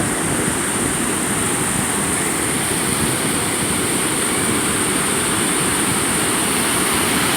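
Steady rush of rough, storm-driven ocean surf breaking on the beach, with wind noise on the microphone.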